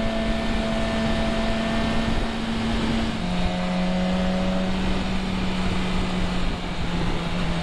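Motorcycle engine running steadily on the move under loud wind rush; the engine note steps down in pitch about three seconds in and again slightly near the end.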